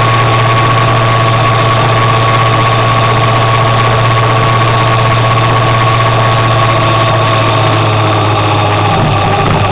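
Motor scooter engine running steadily at cruising speed, a constant loud drone over a rush of road and wind noise; the engine note dips slightly near the end.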